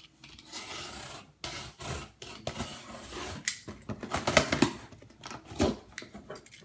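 Box cutter slicing through packing tape and cardboard on a shipping box: a run of scraping, rasping strokes, a few of them louder near the middle.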